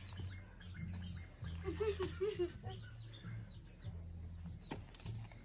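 Small birds chirping faintly, with a hen clucking briefly about two seconds in, over a low hum that comes and goes.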